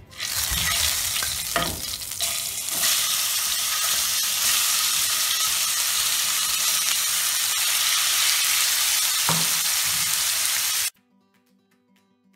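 Marinated chicken frying in hot ghee in a nonstick pan, stirred with a silicone spatula: a loud, steady sizzle that grows louder about three seconds in. It cuts off suddenly near the end, leaving faint guitar music.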